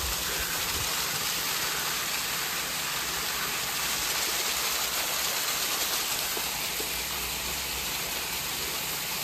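Small waterfall falling in a thin stream down a rock face, a steady splashing of water.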